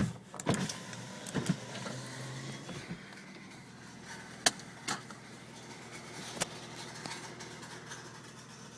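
A car door shutting with a heavy thud, then a few scattered sharp clicks and small knocks of handling around the car, over a quiet background.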